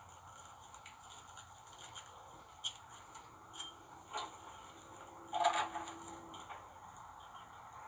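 Small metal parts and hand tools being handled: a few light clinks and taps, then a louder metallic clatter that rings briefly about five and a half seconds in.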